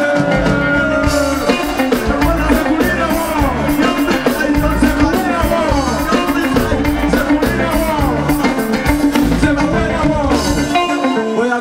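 Live band playing on stage: drum kit, bass and electric guitar, with a rapper's voice singing over the mix.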